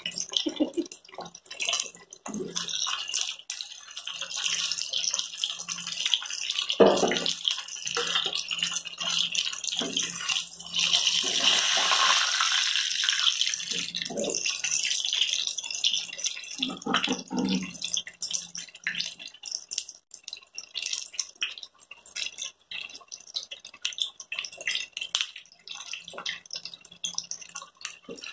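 Chicken drumstick deep-frying in hot oil in a kadai: a steady sizzle with constant crackling and popping. A few knocks and scrapes come from a slotted spatula turning the piece.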